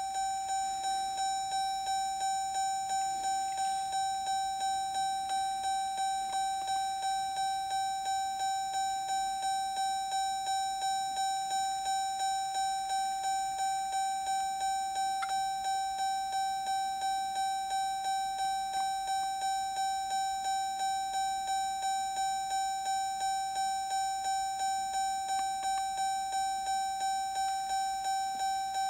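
Car's door-ajar warning chime ringing over and over at about two chimes a second, one steady pitched tone, set off by the driver's door standing open with the key in the run position.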